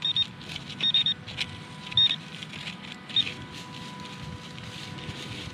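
Handheld metal-detecting pinpointer (Garrett Pro-Pointer) giving a few short high beeps, one a quick triple, as it is moved over and into the hole, each beep signalling metal in the soil near its tip. Between the beeps its tip scratches and crackles in dry straw and hard dirt.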